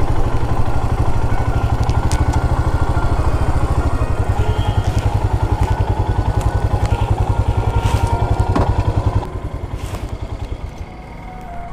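Royal Enfield motorcycle engine running steadily with a regular thudding beat as the bike rolls slowly. About nine seconds in, it drops to a quieter, slower idle as the bike pulls up.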